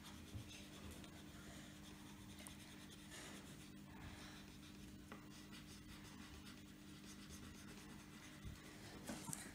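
Faint sound of a crayon colouring in a small square on a paper chart, over a low steady hum.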